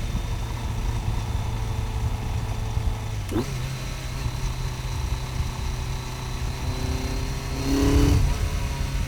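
BMW K1100 RS inline-four engine running steadily on the move. The note breaks briefly about three seconds in and steps up in pitch, and a louder rush swells about eight seconds in. The owner reports a knock from this engine under light throttle, cause unknown.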